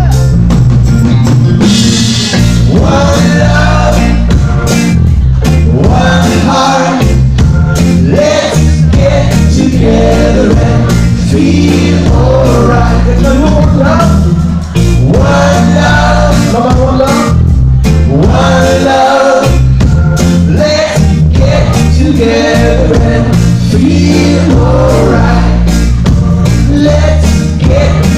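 Live band music: a man singing lead over acoustic guitar, with electric guitar, bass and drums behind him.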